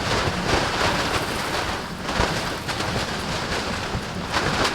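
Strong blizzard wind buffeting a canvas tent, a steady loud rush with low rumbling gusts of wind on the microphone.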